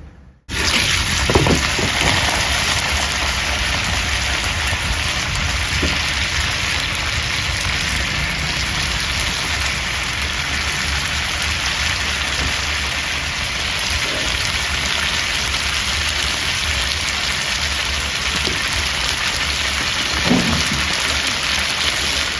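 Pan-fried xiaolongbao sizzling in oil in a large pan, a loud, steady hiss that starts abruptly about half a second in.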